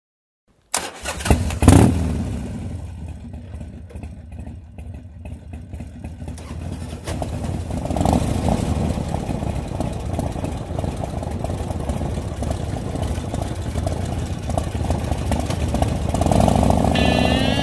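Harley-Davidson V-twin motorcycle engine starting about a second in, with a sharp loud burst as it catches, then running at a steady low idle. The sound gets louder about eight seconds in.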